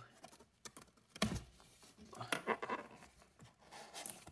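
Craft knife cutting the packing tape on a cardboard box: a sharp knock a little over a second in, then faint scratching and rustling of tape and cardboard.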